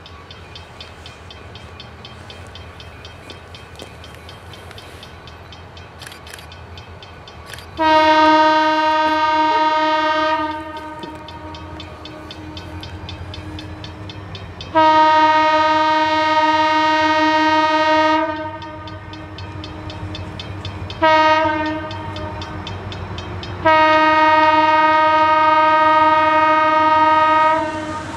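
Nathan M3 air horn on a diesel locomotive sounding the grade-crossing signal, two long blasts, a short one and a final long one, starting about eight seconds in. Under it runs the low, steady rumble of the approaching freight train.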